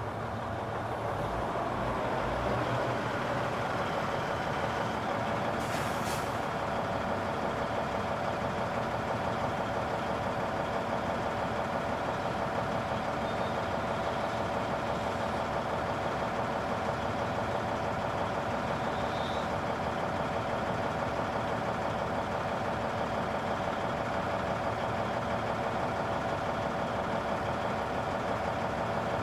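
Construction-site ambience dominated by a heavy machine engine running steadily, its loudness building over the first couple of seconds. A brief hiss comes about six seconds in.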